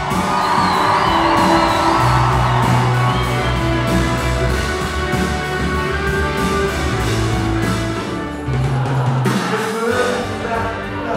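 Live rock band playing: electric guitars over a bass line and a drum kit.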